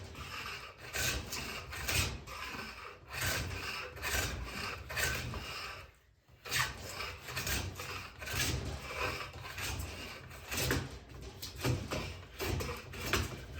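Stanley No. 6 fore plane taking quick repeated strokes along a juniper handle blank: a rapid series of short wooden scraping shaves, with a brief pause about six seconds in.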